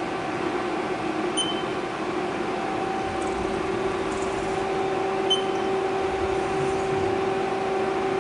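Steady hum of a Haas CNC lathe, with two short high beeps about four seconds apart.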